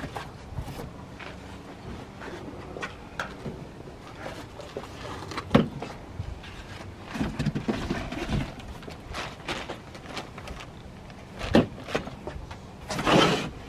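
Cardboard box, foam and bagged tow mirror being handled during unpacking: rustling of packaging with scattered knocks and clicks, the sharpest about five and a half and eleven and a half seconds in, and a burst of rustling near the end.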